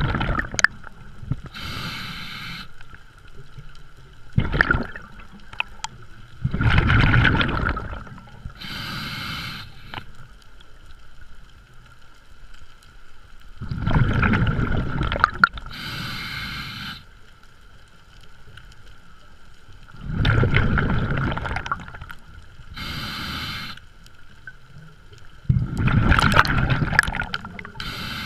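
Scuba diver breathing through a regulator, heard underwater. Each cycle is a loud gurgling rush of exhaled bubbles followed about two seconds later by the shorter hiss of an inhale, repeating roughly every six and a half seconds. A steady high whine runs under it.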